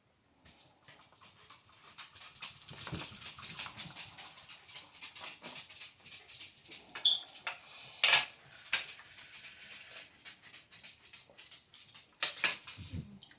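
Small cups and dishes being handled on a table, clattering in a dense run of light clicks, with two sharper knocks about eight and twelve seconds in.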